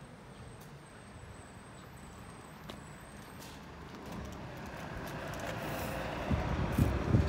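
A motor vehicle approaching, its noise growing steadily louder, with a few low thumps near the end.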